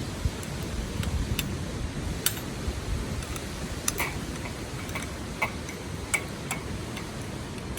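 Wood fire crackling in an open fire pit, with sharp pops at irregular intervals over a steady low rush of outdoor noise.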